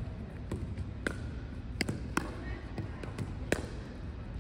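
Pickleball rally: paddles hitting a plastic ball and the ball bouncing on a wooden court, about five sharp pops spread over the few seconds.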